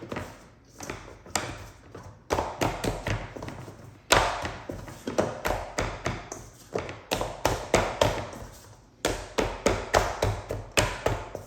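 Pie dough being kneaded by hand: a run of irregular soft thumps and taps as the dough is pressed and slapped down, with a couple of short pauses.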